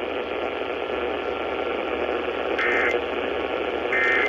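Radio static hiss, broken about two and a half and four seconds in by two short electronic data bursts: the Emergency Alert System end-of-message (EOM) SAME tones that close the tornado warning broadcast.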